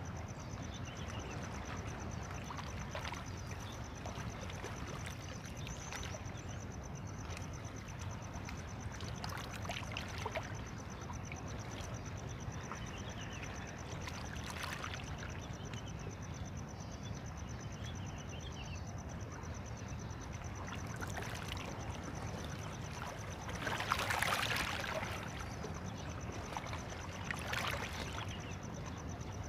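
Small waves lapping and wind on the microphone, a steady outdoor rush with a brief louder gust about three-quarters of the way through.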